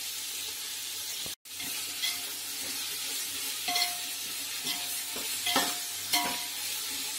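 Sliced onions sizzling in hot oil in a large aluminium pot while being sautéed, stirred with a perforated steel ladle that scrapes and clinks against the pot several times with a short metallic ring.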